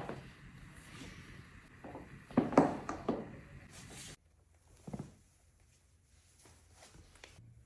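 A chiropractic adjustment with body and clothing rustling against the table. A quick run of sharp joint cracks comes a little over two seconds in and is the loudest part. The sound drops abruptly to quiet about four seconds in, followed by one more soft knock.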